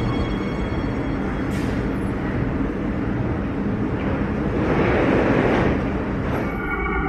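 Warsaw Metro train standing at an underground platform: a steady rumble and hum of the train and station. A louder rush of hissing noise comes about five seconds in, then the sound changes abruptly.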